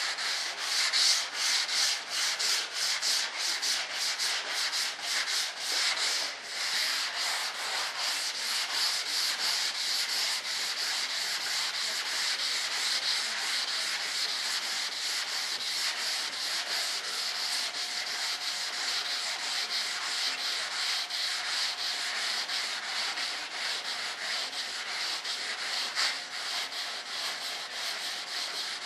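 Sanding block with fine sandpaper rubbing back and forth over the primed surface of a B-1 bomber model panel. The strokes are quick and distinct at first, about two or three a second, then become a steadier, continuous rubbing. This is the fine-grit smoothing stage that starts to bring a shine to the primer.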